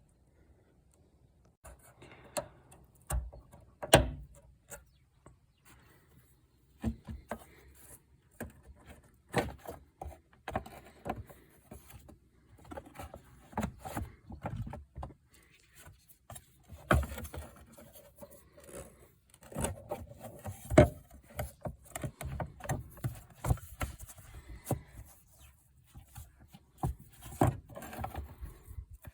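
Irregular knocks, scrapes and rattles of things being handled, with no steady motor or pump sound.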